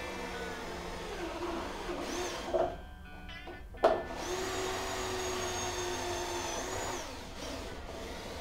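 Electric drill running a bigger bit through plastic to enlarge a hole for a water fitting. A first run of about two and a half seconds has its pitch sagging under load and ends with a short knock; then a steady second run of about three seconds stops suddenly.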